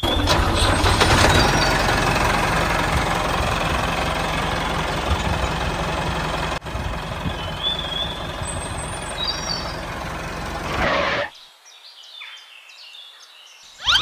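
Tractor engine running steadily, slowly fading, then swelling briefly and cutting off sharply about eleven seconds in, leaving near quiet.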